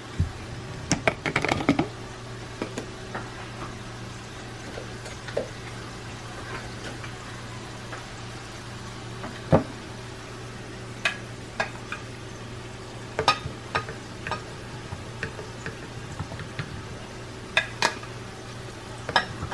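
Scattered clicks and knocks of fruit and containers being handled while loading a blender with fruit for a smoothie, over a steady low hum.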